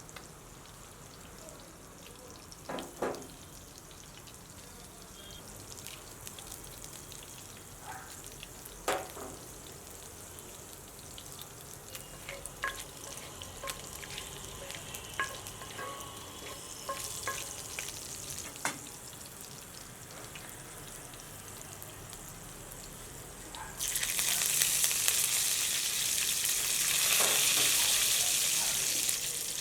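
Food frying in a pan: a low sizzle with the scattered clicks and scrapes of a utensil stirring against the pan. Near the end, a much louder, dense sizzle starts abruptly and keeps going.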